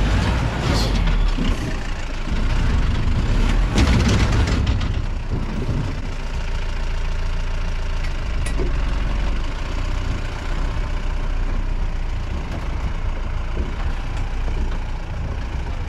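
Off-road jeep's engine running steadily as it drives along a rough track, with clattering and a few sharp knocks during the first five seconds.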